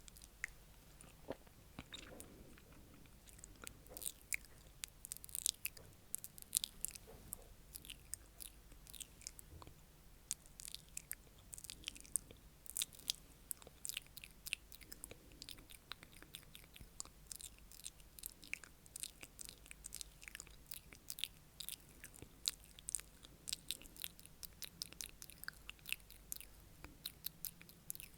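Wet mouth sounds: a dense run of soft clicks and smacks, several a second, irregular.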